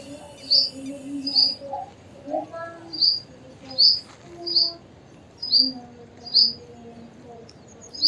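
Purple sunbird calling: a series of short, sharp, high-pitched notes, about eight in all, repeated every half second to a second.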